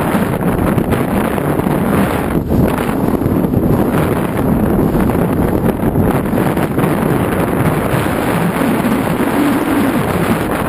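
Heavy wind buffeting a GoPro Hero 2 camera's microphone on a moving boat: a loud, steady, low rumble with no pitched engine note standing out.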